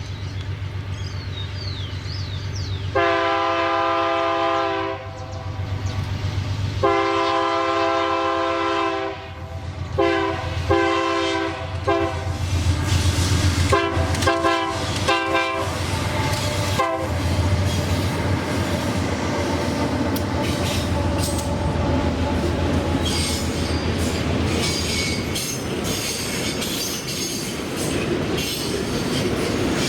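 Diesel freight train approaching with its locomotive engine rumbling and its multi-note horn sounding: two long blasts, then a string of short ones. Then the train rolls past with wheels clacking over rail joints and high wheel squeal near the end.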